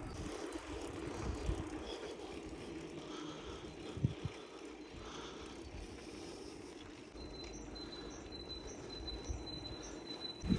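Bicycle riding on a paved road: a steady rolling noise with some wind on the microphone, and a single knock about four seconds in. From about seven seconds a thin, steady high tone joins in.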